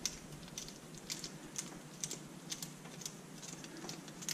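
Faint light metallic clicks, two or three a second at an uneven pace, from parts being worked by hand on the bare engine, around the cam chain tensioner bolts.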